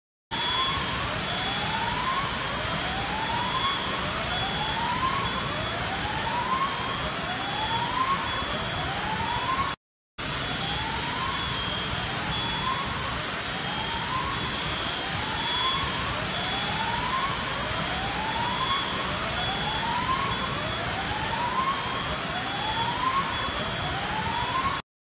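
An alarm siren whooping over and over, each whoop rising in pitch, about once a second, over a loud steady wash of noise, with a thin high tone breaking in and out. The sound cuts out briefly near the middle, then carries on the same.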